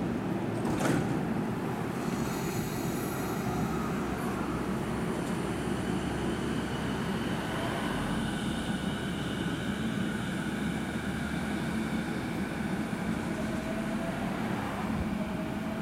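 JR East E233 series 5000 Keiyo Line electric train pulling away from the platform. Its inverter and traction motors give off a whine that slowly rises in pitch as it gathers speed, over a steady rumble and strong wind on the microphone.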